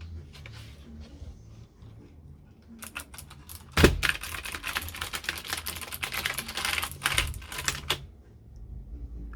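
Typing on the MS Elite RGB Pro mechanical gaming keyboard: a few scattered keystrokes about three seconds in, then a fast, dense run of key clicks for about four seconds, opening with one loud hit, before it stops.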